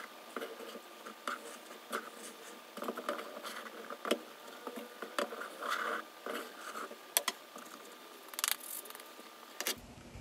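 Metal ruler scraped across packed molding sand in a wooden flask to level it off, giving an irregular series of short gritty scrapes and light clicks.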